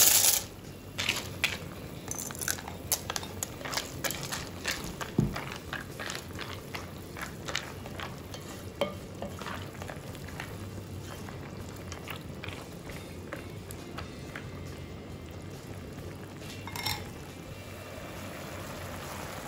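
Spatula stirring a pot of chicken stock with macaroni, chicken and hotdog, with many small clicks and scrapes against the metal pot over a steady bubbling. Near the end a glass lid is set on the pot with a clink, and the soup simmers evenly under it.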